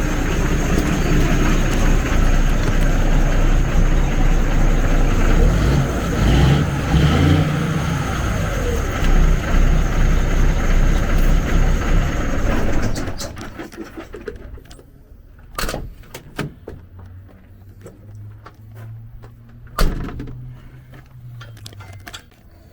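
Freightliner Columbia truck's diesel engine running, then shut off about halfway through, its noise cutting out abruptly. A couple of sharp knocks follow in the quiet.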